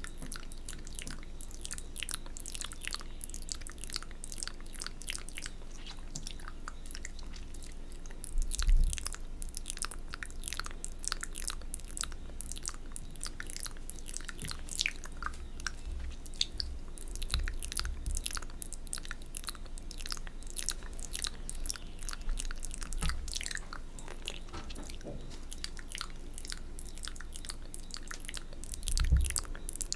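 Close-miked wet mouth sounds of ASMR spit painting: a steady stream of tongue clicks, licks and lip smacks on the fingers. Two brief soft low thumps stand out, about eight seconds in and near the end.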